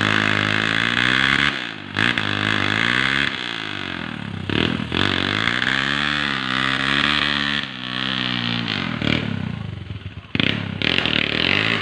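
Trail motorcycle engine revving up and easing off over and over, its pitch rising and falling. The throttle is cut briefly several times.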